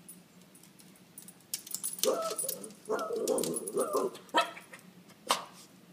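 Small Yorkshire terrier barking excitedly in two quick runs about two seconds in, followed by two sharp knocks.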